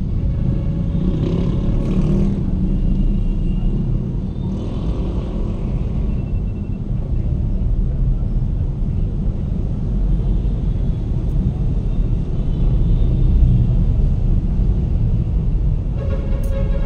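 Steady low rumble of a car's engine and road noise, heard from inside the cabin while creeping through heavy traffic, with the surrounding cars and motorcycles mixed in.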